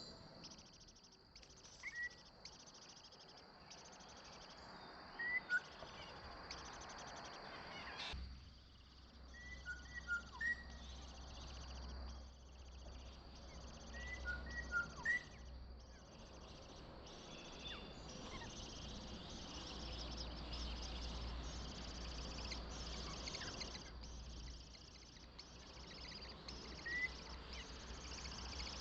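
Short, rising bird chirps in small clusters, over a steady pulsing drone of insects. A low rumble joins about eight seconds in.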